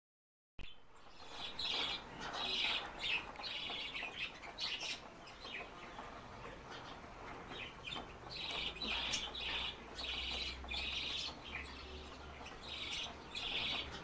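Red-wattled lapwing calling: runs of short, sharp, high notes repeated in quick succession. The calls start about half a second in and come in two bouts, a short one early and a longer one in the second half.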